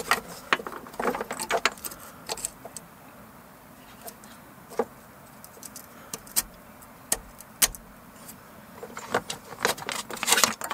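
Scattered sharp clicks and light rattling of a plastic ABS wheel-speed sensor cable connector being handled and pushed onto its bracket on the suspension strut. The clicks come in clusters about a second in and again near the end.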